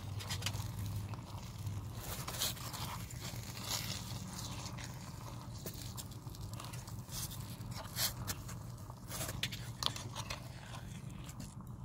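Small steel spatula scraping and clicking against a tiny steel pan as chicken and masala are stirred, in irregular strokes over a steady low hum.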